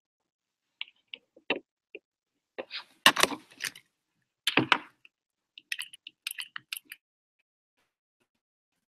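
Irregular clicks and knocks of small hard objects being handled on a desk. There are louder clatters about three seconds in and again around four and a half seconds, then a quick run of small clicks.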